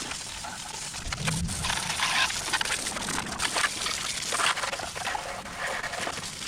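Tape being pulled off the roll, torn and pressed over a dirt bike's air intake: an irregular run of short crackling, ripping noises.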